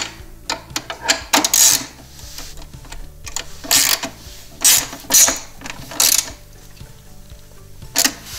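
Socket ratchet with a 10 mm socket on an extension tightening a nut, clicking in short bursts at irregular intervals as the handle is swung back and forth.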